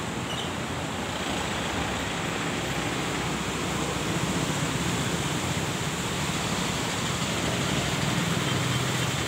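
Muddy floodwater rushing through a sluice channel below the bridge: a steady, even rushing noise, a little louder in the middle.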